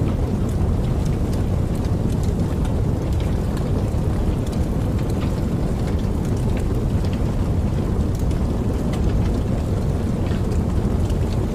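Campfire burning, a steady low rumble with many small sharp crackles and pops scattered throughout.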